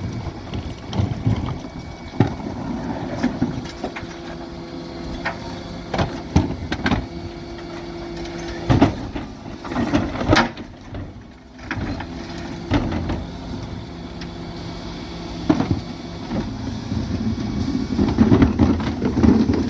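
Dennis Elite 6 refuse truck running at the kerb, its hydraulics giving a steady hum that stops and starts as the Terberg OmniDe lift raises and tips wheelie bins. Several sharp bangs of plastic bins knocking against the lift and body.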